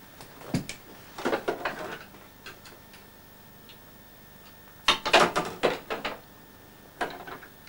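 Clusters of light clicks and knocks, like small objects being handled and bumped. The loudest run comes about five seconds in.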